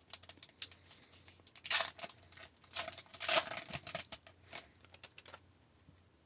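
A 2019-20 SP Authentic hockey card pack wrapper being torn open and crinkled, with light clicks and rustles of cards being handled. The two loudest tearing rasps come about two and three seconds in.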